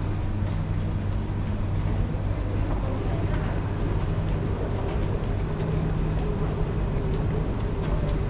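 Underground metro platform ambience: a steady low machinery hum with a noisy wash of background sound, faint footsteps and distant voices, and a faint high tick repeating about twice a second.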